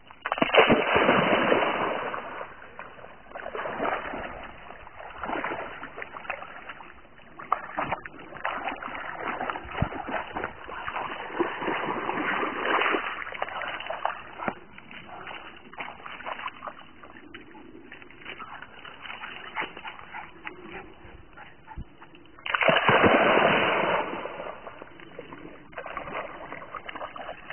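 A dog jumping into a pond with a loud splash, then swimming and sloshing through the water in irregular bursts, with another loud burst of splashing near the end.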